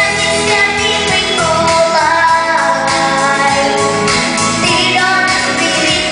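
A female voice singing a song over instrumental accompaniment, with held and sliding notes.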